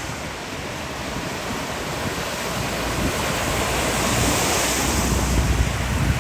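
Strong storm wind and heavy rain, with wind buffeting the microphone as a low rumble; the noise swells over the second half.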